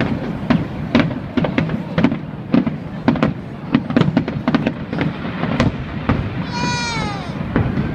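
Fireworks bursting in quick succession, a dense run of sharp bangs and crackles over a steady background noise, with a drawn-out falling tone about a second before the end.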